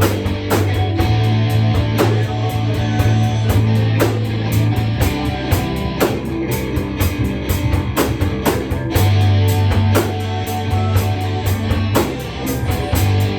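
Rock music with guitar, bass and a drum kit. Cymbal ticks keep a steady beat of about four a second over sharp drum hits, and the bass note shifts a couple of times.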